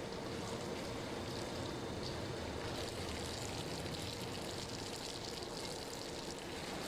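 Steady, even rushing noise with a faint steady hum underneath.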